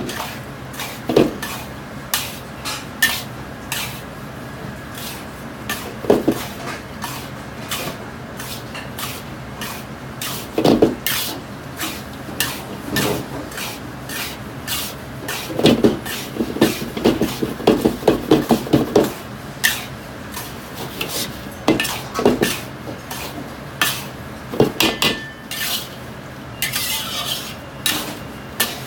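A metal wok ladle scraping and knocking against a carbon-steel wok as a pan full of salt with whole spices is stir-toasted dry. The strokes are irregular, with a quick run of them about halfway through.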